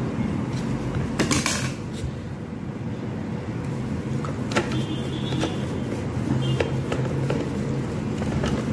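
Screwdriver turning a screw into an electric kettle's plastic handle: a few small clicks and a brief faint squeak, with a short rustle about a second in. A steady low hum runs underneath.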